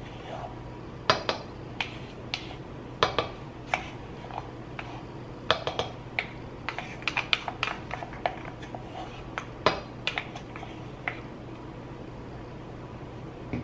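Spoon clinking and scraping against a milk frother's jug while scooping milk froth out of it: irregular sharp clinks, a few every second or two.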